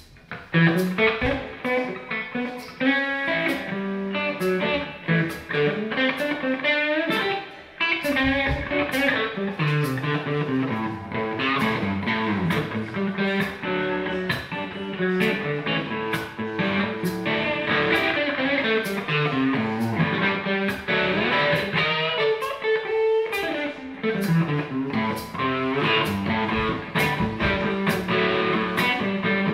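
Live funk-blues band playing over a steady drum beat, with electric guitar and baritone and tenor saxophones in the mix. The music comes in loud about half a second in.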